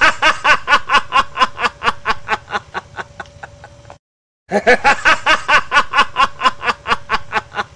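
A man's long, loud stage laugh, 'ha-ha-ha' at about four or five beats a second, trailing off over a faint steady tone. It breaks off in half a second of dead silence about four seconds in, then starts again loud.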